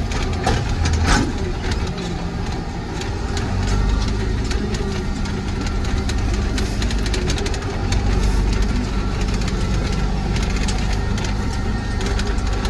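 Tractor engine running steadily under way, heard from inside the cab, with the cab and front-end loader rattling and knocking over the rough dirt track; one louder clunk about a second in.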